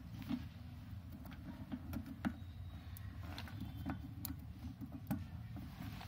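Scattered light clicks and taps of plastic push-button contact elements (NO/NC blocks) being handled and snapped back into place, over a low steady hum.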